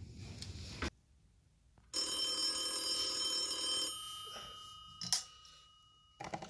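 Telephone bell ringing once for about two seconds, its tones dying away slowly afterwards. A short burst of tapping and rustling cuts off about a second in, a sharp click comes about five seconds in as the bedside lamp is switched on, and there is fumbling near the end as the phone is reached for.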